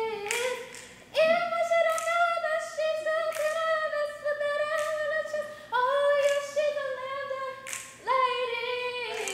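A woman's voice singing unaccompanied, holding a few long notes of several seconds each.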